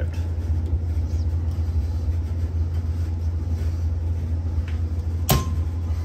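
Steady low hum in the background, then about five seconds in a single sharp snap as a two-pole circuit breaker is switched back on and trips instantly. The instant trip is the sign of a short on the circuit, traced to the blower motor's run capacitor, which had fallen out of its holder and shorted to the casing.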